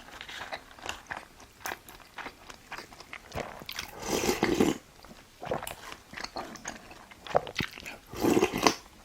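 A person eating close to the microphone: wet chewing with many small mouth clicks, and two louder, longer eating noises, one about four seconds in and one near the end.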